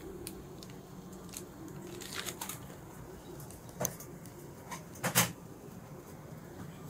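Faint handling noise from a plastic piping bag and gloves, with a few sharp clicks about two, four and five seconds in, the loudest near the end, over a low steady hum.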